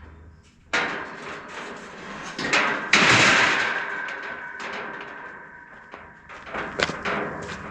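Steel carport parts clanking: a sharp metal knock about a second in, then a louder clang near three seconds in that rings on for a few seconds, followed by several smaller knocks near the end.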